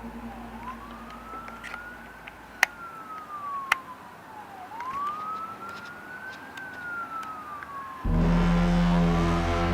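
A siren wailing, its single tone slowly rising and falling about every four seconds, with two sharp clicks in the first half. About eight seconds in, a much louder low drone of steady tones cuts in abruptly under the siren.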